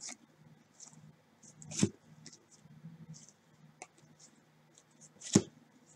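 Gloved hands shuffling a stack of 2017-18 Panini Prizm basketball cards, the glossy cards sliding and flicking against one another in soft rustles and clicks. Two louder taps come about two seconds in and near the end.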